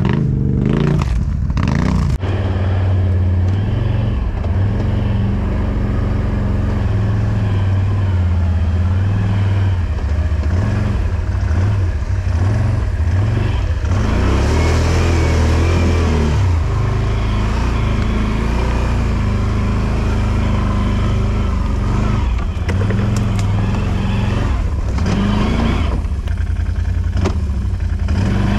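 ATV (quad bike) engine running under load off-road, its revs rising and falling, with a few knocks and clatter in the first couple of seconds.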